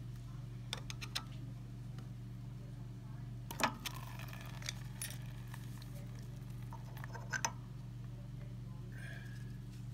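Riello oil burner's motor humming steadily, with a handful of light metallic clicks and taps from handling its oil pump and nozzle fittings. Red fuel oil runs out of the pump's nozzle line into a catch bowl, a sign the motor is driving the oil pump.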